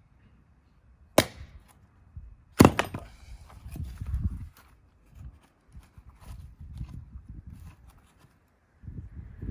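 Axe splitting firewood: two sharp, cracking strikes about a second and a half apart, the second the louder, followed by softer low knocks of the wood being handled.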